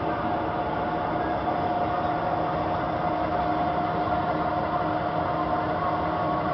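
RT2503 heavy screw-cutting lathe (a 1M63N with 10,000 mm between centres) running steadily: an even mechanical noise with a steady whine.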